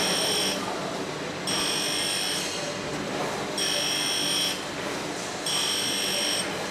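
Bench grinder wheel grinding metal: a steady rough grinding noise, with a high-pitched screech that comes on for about a second each time the metal bites the wheel and drops away in between, about every two seconds.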